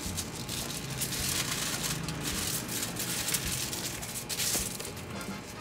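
Aluminium foil crinkling and rustling in irregular bursts as it is handled and folded by hand around a boiled potato.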